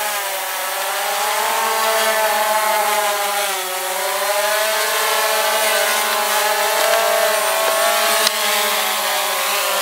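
Quadcopter's electric motors and propellers whining steadily as it descends to land, the pitch wavering up and down as the throttle is worked. A single sharp click about eight seconds in as it touches down on paving stones.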